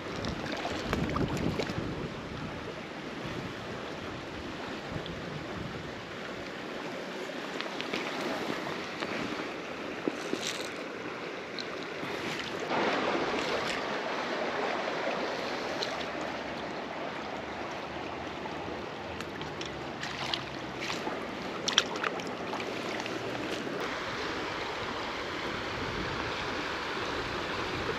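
River water flowing steadily, with a few light clicks and knocks now and then.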